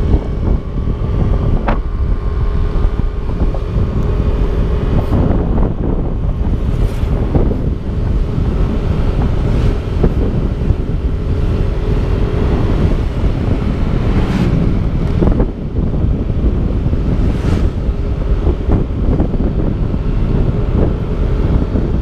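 Wind buffeting the microphone of a camera on a moving Yamaha motorcycle, with the bike's engine running underneath as a steady hum.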